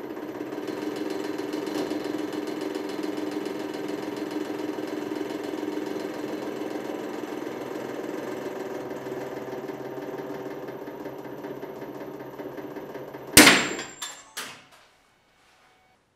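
Hydraulic press pump running with a steady hum as the ram bears down on the handle of old steel pliers. About 13 seconds in, the hum ends at a sudden loud crack, followed by two or three lighter knocks.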